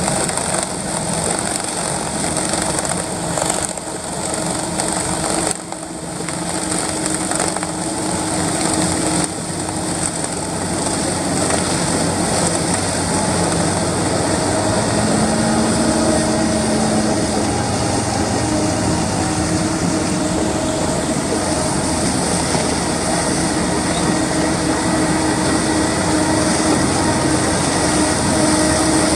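Farm machinery engines running steadily under load, with a few brief knocks and dips in level in the first ten seconds.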